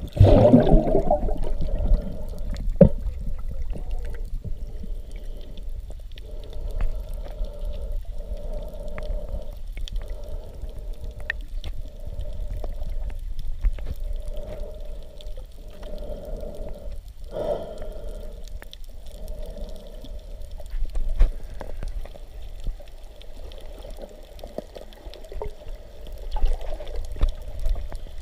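Muffled underwater audio from a submerged action camera: a loud rush of water right at the start, then water moving and bubbling around the camera, with a low droning sound that swells and fades every second or two.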